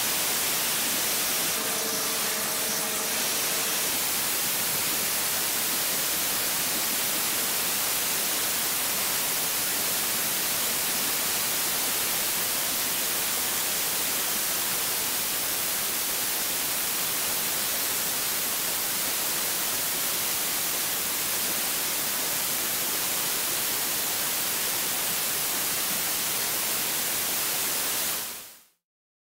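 Water jet cutting machine running: the high-pressure jet gives a loud, steady hiss that stops abruptly near the end.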